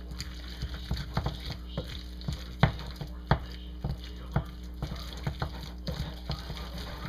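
Wooden spoon beating sticky choux-style dumpling dough in a glass bowl as an egg is worked in: irregular knocks and scrapes of the spoon against the glass, about two a second, the loudest a little under three seconds in, over a steady low hum.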